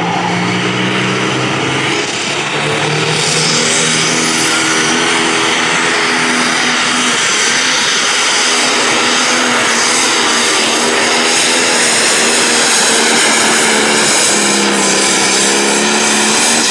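Light-limited pro stock pulling tractor's turbocharged diesel engine running hard under load while dragging the weight-transfer sled down the track. Loud and held at a steady pitch, with a brief dip about two seconds in.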